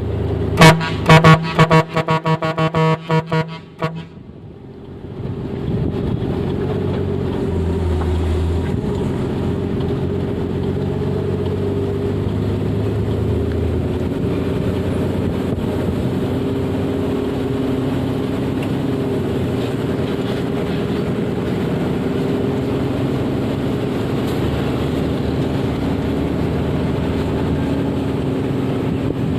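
A few seconds of sharp, rapidly repeated pitched notes, then a steady drone of a moving vehicle's engine and road noise.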